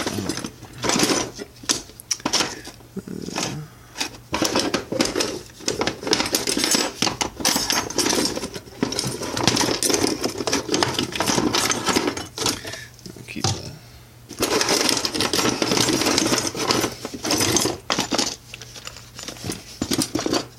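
Rummaging through a drawer of bike parts: small metal pieces clattering and clinking almost without pause, with a brief lull about fourteen seconds in.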